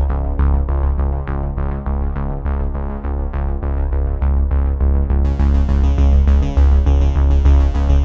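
Electronic background music with a steady beat over a pulsing bass; a little past halfway, bright hissing high percussion comes in.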